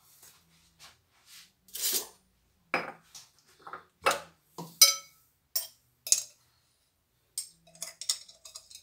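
A metal spoon clinking and tapping against kitchen containers as spices are fetched and scooped: a string of separate sharp clinks and knocks, a few with a short ring.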